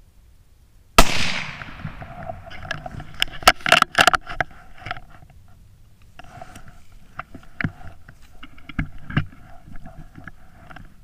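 A single .17 Mach 2 rimfire rifle shot, a sharp crack about a second in, followed by a few seconds of clicks, clatter and rustling as the rifle is handled.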